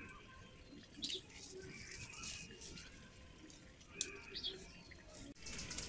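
Small wood fire crackling and popping under a cooking stone as twigs are poked into it, with a sharp snap about four seconds in.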